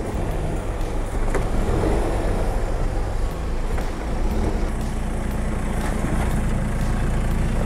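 Off-road 4x4 SUV engines running at low revs as the vehicles crawl over a rough dirt track. The steady low engine note shifts about four seconds in.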